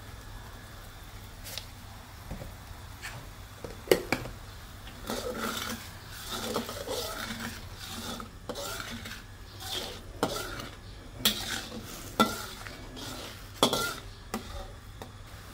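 Long steel spatula stirring and scraping a bubbling garlic sauce in a stainless steel wok, with several sharp clinks where the spatula strikes the wok.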